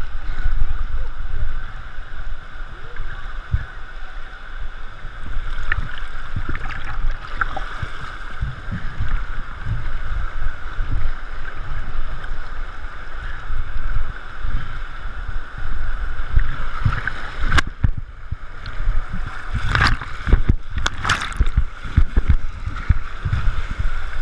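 River water rushing, with low buffeting that comes and goes. A cluster of sharp knocks sounds near the end.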